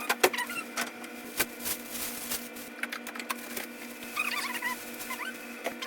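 Irregular clicks and light knocks of groceries and packaging being handled, over a steady hum, with a few short squeaky chirps, a cluster of them about four seconds in.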